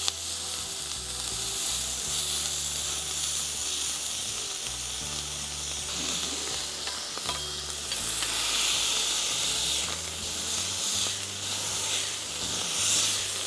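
Balls of 80/20 ground chuck sizzling on a hot steel griddle as they are smashed flat under a spatula and smasher press. The sizzle is steady and grows stronger in the second half as the patties are pressed thin and steam comes off.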